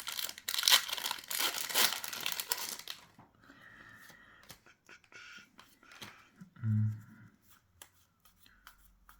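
A foil booster pack wrapper being torn open and crinkled for about three seconds, followed by quieter rustling and light clicks as the pack and cards are handled.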